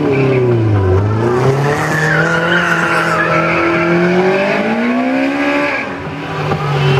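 A car's engine revving up and down through tight slalom turns, its tyres squealing as it slides between cones.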